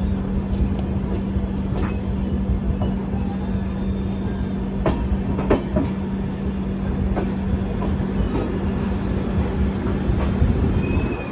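LHB passenger coach rolling slowly on the rails, heard from the doorway: a steady rumble with a low steady hum and a few sharp clicks from the wheels over rail joints.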